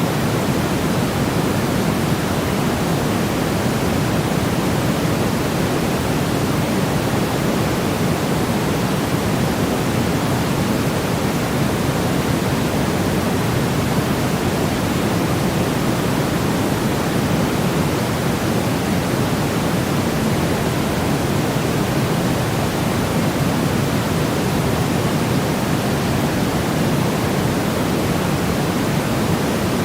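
Steady, unchanging white-noise track with no events, heavier in the low end than the high, like pink noise.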